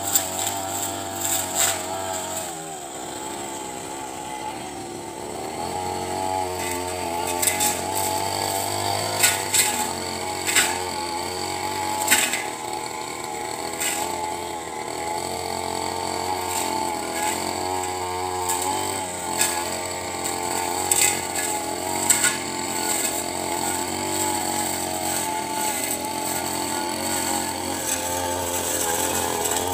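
Backpack brush cutter's small petrol engine running at high revs while cutting grass, its note wavering up and down as the load changes. Sharp clicks are scattered through it.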